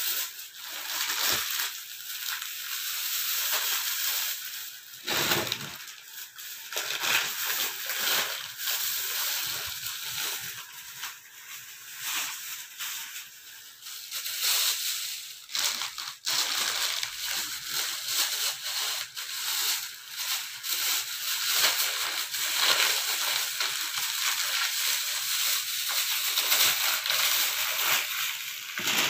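Thin clear plastic bags crinkling and rustling as they are handled, opened and filled: an irregular, continuous crackle that swells and fades with the handling.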